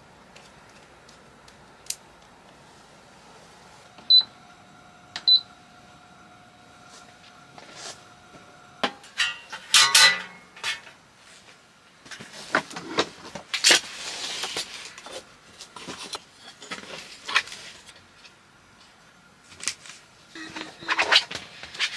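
Two short electronic beeps, then metal clattering and clicking as a folding camping table's metal legs are swung out and locked, followed by rustling and knocks as the table is handled and set upright.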